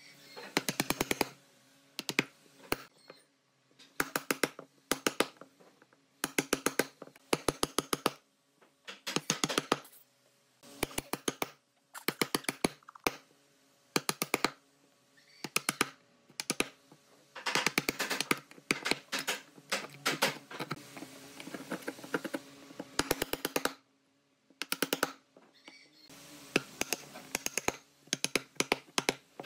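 Wood chisel cutting mortises in a softwood board: bursts of quick, sharp knocks, several strikes at a time, repeating every second or two, with softer scraping between as chips are levered out.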